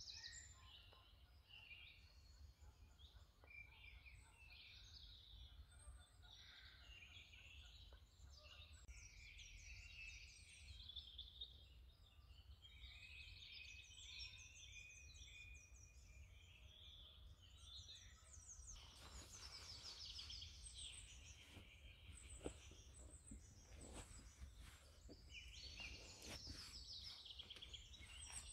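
A faint chorus of woodland songbirds, many overlapping chirps and trills. From about two-thirds of the way through, a few sharp clicks and knocks join in.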